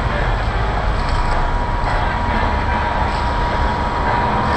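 Road traffic on a city street: a steady mix of passing vehicles with a strong low rumble and a faint steady whine.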